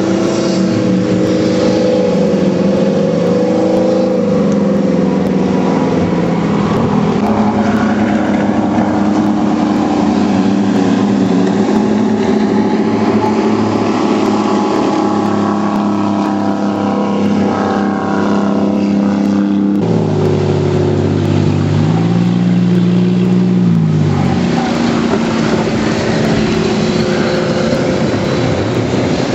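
Jet boat engines running hard, their pitch rising and falling as the throttle is worked through slalom turns. About two-thirds of the way through the sound changes abruptly to another boat's lower engine note, which revs up and back down.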